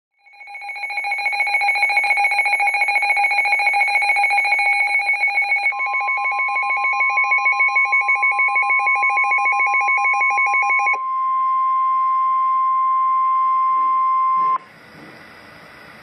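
NOAA weather alert radio sounding a loud, rapidly pulsing two-pitch alert siren for about ten seconds, marking a severe thunderstorm warning. Midway through, the steady single-pitch NOAA Weather Radio warning alarm tone joins it, carries on alone after the siren stops, and then cuts off sharply, leaving faint hiss.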